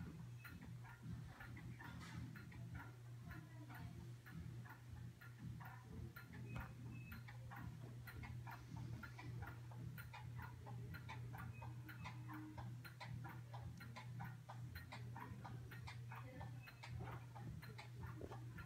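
HO-scale model trains running on the track, their wheels clicking over the rail joints several times a second, over a steady low hum.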